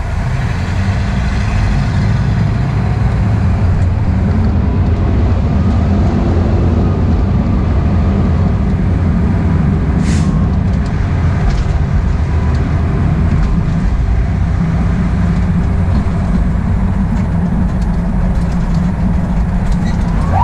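Diesel engine of a 2021 Spartan Metro Star fire engine running steadily while driving, with road and wind noise from a camera mounted outside the truck. A brief hiss about halfway through.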